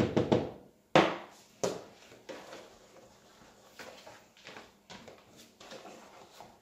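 A metal flour shaker shaken in a few quick strokes over bread dough, then a sharp knock about a second in as it is put down, followed by soft thumps and rustling of a dough mat being lifted and folded over the dough.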